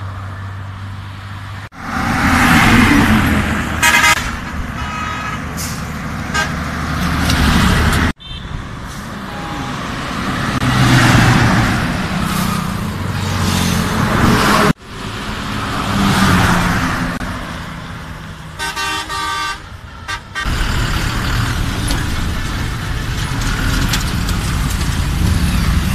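Coaches and a truck passing close by in quick succession, each engine and its tyre noise swelling and then fading, in several short cuts. Bus horns blow in short multi-tone blasts a few seconds in and again about three-quarters of the way through.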